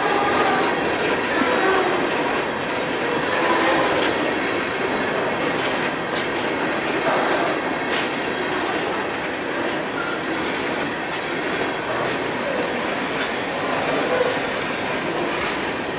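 Coal gondola cars of a freight train rolling past, wheels clicking over rail joints in a steady rumble, with faint wavering squeal from the wheels.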